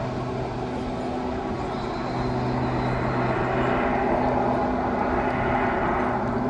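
Pitts Special aerobatic biplane, fitted with jet engines, hanging in a hover on its propeller at full power: a steady engine drone under a rush of noise that grows louder about two seconds in.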